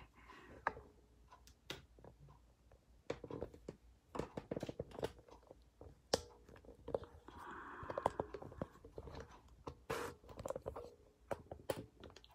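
Irregular small clicks, knocks and a short stretch of rubbing in the middle: a hand handling and repositioning a camera on its mount.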